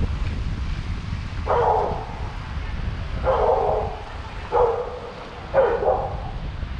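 Four short barks, spaced a second or so apart, over a steady rumble of wind on the microphone.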